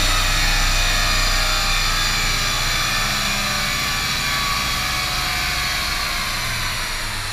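MK6 Volkswagen Jetta TDI with its DPF and muffler deleted, running on a chassis dynamometer: a loud steady rush of roller and air noise over a low diesel drone, easing off slightly near the end.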